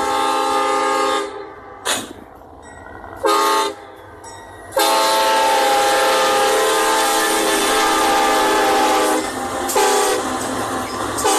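A diesel locomotive's multi-chime air horn sounding a chord in a series of blasts: one at the start, a short toot and a short blast, then a long blast of about four seconds and another near the end, over the rumble of the passing train.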